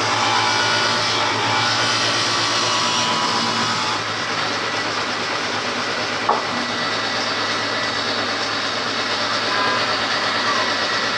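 Combination woodworking machine running steadily with a low motor hum as a wooden board is fed across it and cut; the cutting noise is heaviest for the first four seconds, after which the machine runs on, with a single short knock about six seconds in.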